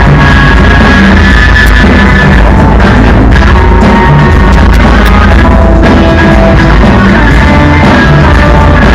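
Live rock band playing an instrumental passage with no singing: drum kit, electric guitars and a strummed acoustic-electric guitar, recorded very loud.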